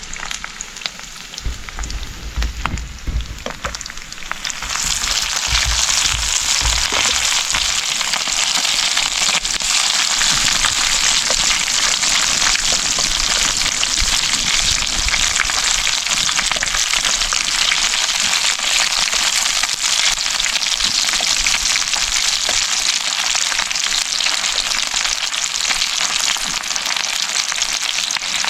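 Small cará fish frying in hot oil, a dense crackling sizzle. It is softer for the first few seconds, with a few low knocks, then swells loud about four or five seconds in and stays steady.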